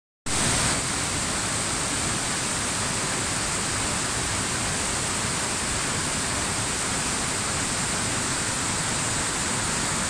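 Waterfall and the white-water cascade below it rushing over boulders: a steady, unbroken rush of water with a strong hiss.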